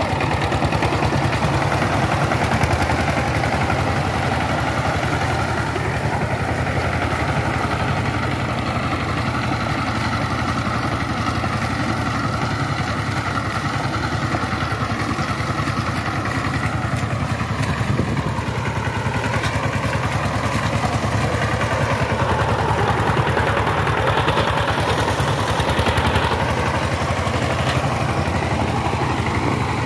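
Single-cylinder diesel engine of a two-wheel power tiller running steadily under load, with a fast, even pulse, while the tiller's cage wheels work through a flooded paddy field.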